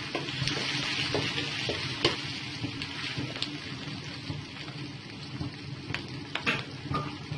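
Coarsely cut onions sizzling in hot oil in a pan, a steady frying hiss, with a few short clicks of the onions being stirred.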